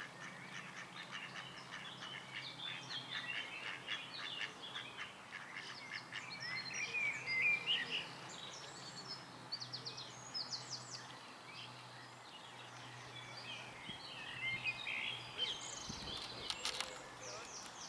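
Birds calling outdoors: a busy chatter of many short, high chirps and calls, thickest in the first half and again near the end, over a faint steady low hum.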